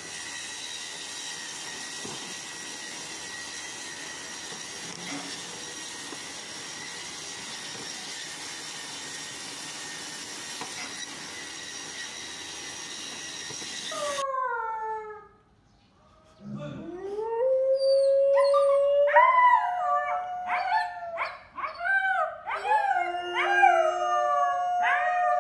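For the first half, a woodworking machine running with a steady hum and hiss. After a brief pause, a golden retriever and a puppy howl together: one long howl that rises and then holds, overlapped by shorter, higher howls that rise and fall again and again.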